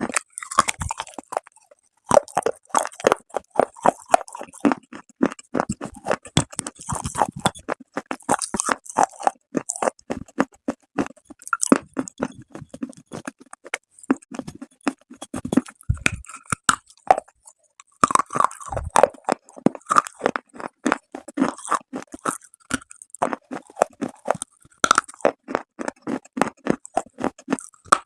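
Close-miked biting and chewing of brittle clay: rapid crisp crunches in bursts, with short pauses between bites.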